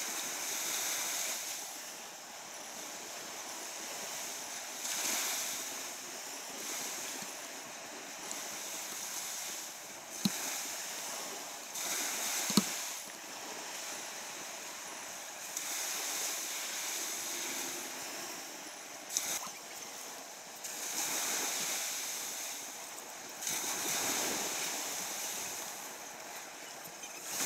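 Sea waves washing in, a hiss that swells and fades every few seconds. Two sharp knocks come about ten and twelve and a half seconds in.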